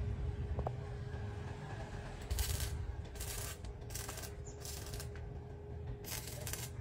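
Stick welder arc crackling and hissing in about four short bursts as the rod is struck on a galvanized steel box-section frame, starting about two seconds in, over a steady hum.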